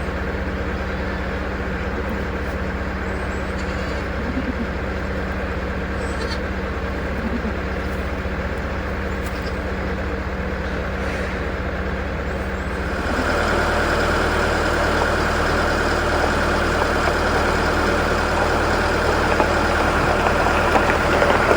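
A motor vehicle's engine running steadily, getting louder and shifting in pitch about 13 seconds in, with a few faint clicks in the first half.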